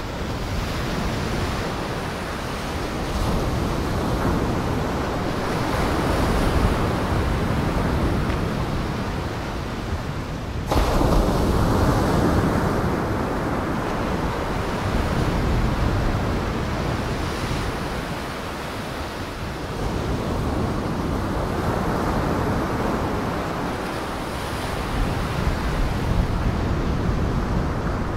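Heavy surf: waves breaking and washing in a continuous rush of water with some wind, swelling and easing every few seconds. The sound jumps abruptly louder about eleven seconds in.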